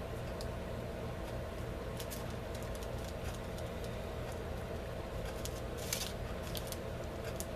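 A black marker tip scratching and tapping on a glossy, medium-coated index card, with the card shifting on a plastic sheet: a scattering of faint short clicks and scratches, the strongest about six seconds in, over a steady low hum.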